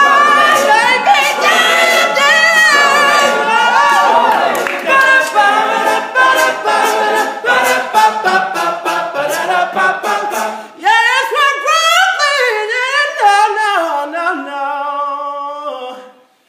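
Male a cappella group singing loudly in full harmony. About eleven seconds in the ensemble thins out to mostly one male solo voice singing falling runs and a held note, which cuts off suddenly near the end.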